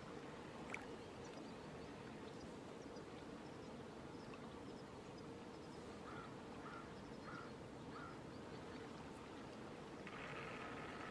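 Faint riverside ambience with a steady hiss, a single click about a second in, a run of four short chirps in the middle, and a brief buzzing near the end.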